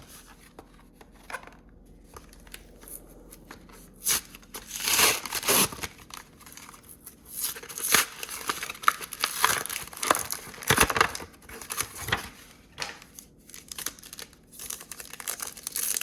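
Plastic retail packaging of a Prizm football card blister pack being torn open, then the foil card packs crinkling and ripping in irregular bursts. It starts about four seconds in and pauses briefly near the end.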